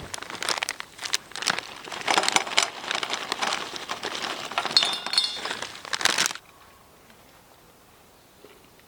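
Crinkly rustling of something being handled by hand, with a brief ringing note about five seconds in. It stops abruptly about six seconds in.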